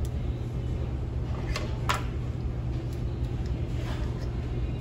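Steady low machine hum in the room, with a few short clinks of cutlery against a plate, the sharpest about two seconds in.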